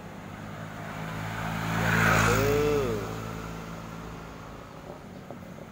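A motor vehicle passes by on the road: its engine swells to a peak about two seconds in, then fades away.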